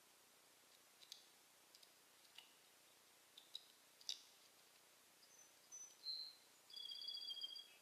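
Faint songbird calls: a scattering of short, sharp chip notes, then a few brief whistled notes near the end, the last a steady two-toned whistle lasting under a second.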